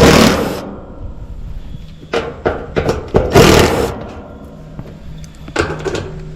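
Bursts of rustling and scraping, four of them with pauses between, as sensor wires are pulled through the heat pump's cabinet by hand.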